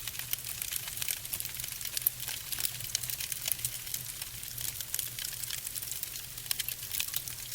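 Fire burning, with dense irregular crackling and popping over a steady low rumble.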